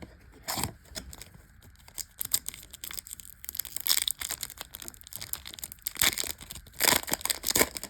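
Foil Yu-Gi-Oh booster-pack wrapper crinkling and crackling in irregular bursts as it is handled and torn open, loudest about four, six and seven seconds in.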